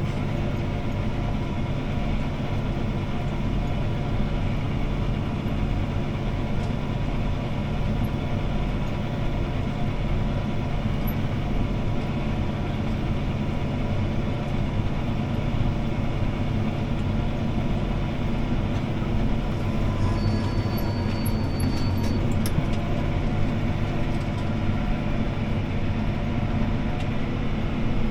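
CLAAS ARION 650 tractor's six-cylinder diesel engine running steadily under load while pulling a disc harrow, heard inside the cab. About twenty seconds in, a thin high tone sounds for about two seconds along with a few faint clicks.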